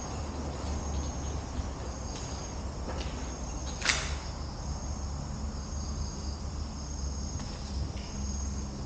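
Insects chirring steadily at a high pitch over a low steady rumble, with a single sharp knock about four seconds in.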